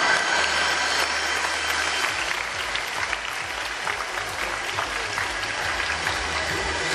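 Audience applauding, many hands clapping, as show music fades out in the first second or so.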